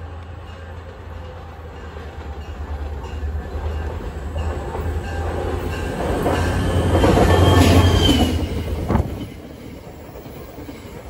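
An NJ Transit diesel-hauled train approaching and passing close by. A steady low engine rumble builds to its loudest about seven to eight seconds in as the locomotive goes past, with a brief high wheel squeal. It drops off suddenly about nine seconds in to the quieter rattle of the passing coaches.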